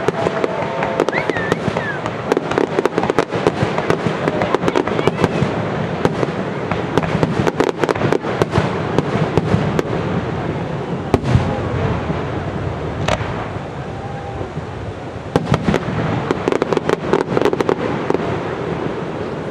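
Aerial fireworks shells bursting, with rapid bangs and crackling, dense for the first half and thinning to scattered bangs toward the end.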